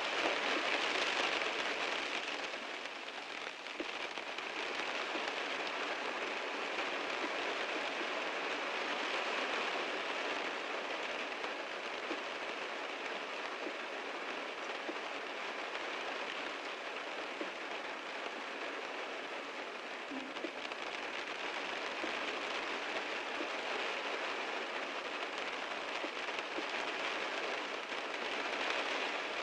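Heavy rain drumming on a car's roof and body: a steady dense patter that swells slightly in the first couple of seconds and again near the end.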